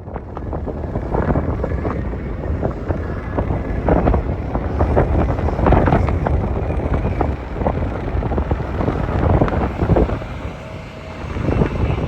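Strong wind buffeting the microphone in irregular gusts, over the low rumble of a Boeing 787-9 jet airliner on its landing approach.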